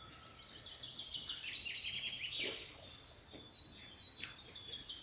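A bird singing a run of quick chirps that step down in pitch, twice, with a short click about halfway through.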